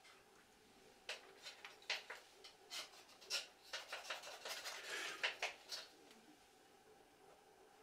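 Irregular light clicks, taps and rubbing from hands handling a wooden beehive frame with a wax foundation sheet on a wooden bench, starting about a second in and busiest between four and five and a half seconds before stopping.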